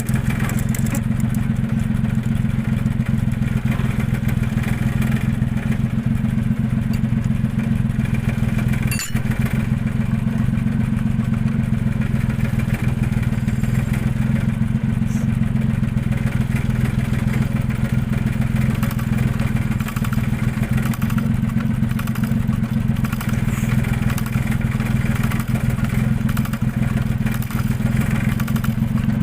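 Diesel injector test bench running steadily, its drive motor and pump giving a deep even hum while the injectors are spray-tested. One sharp click comes about nine seconds in.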